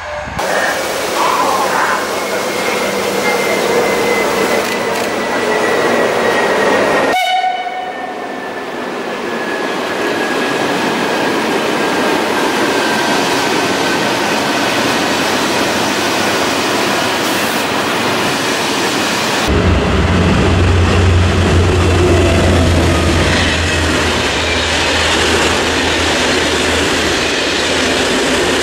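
Passing SNCF trains hauled by CC 72100 diesel locomotives: a steady running noise of coaches rolling by, with a slowly falling tone in the first few seconds. About two-thirds of the way in, a deep diesel engine rumble comes in as a train pulls out beneath a station roof.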